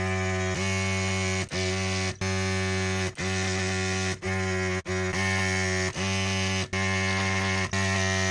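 A small electric motor buzzing steadily with a low hum, cut off for an instant about once a second, its pitch dipping at each break.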